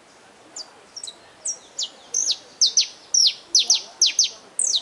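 Saffron finch singing: a run of sharp, quickly falling whistled notes that begins about half a second in and grows faster and louder.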